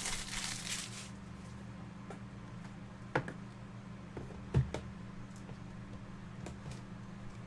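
Trading cards and their plastic packaging being handled: a brief rustle in the first second, then a few light taps over a steady low electrical hum.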